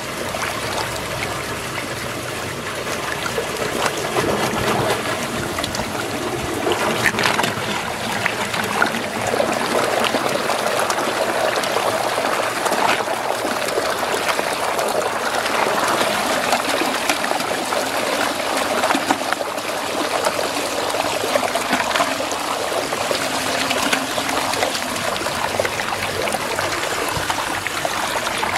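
Swirling water draining down a whirlpool hole, with steady sloshing and many small splashes as a hand pushes plastic toy cars through the water. It gets a little louder about four seconds in.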